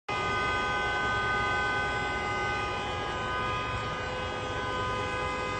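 A vehicle horn held down continuously, two steady notes sounding together without a break, over a constant hiss of background noise.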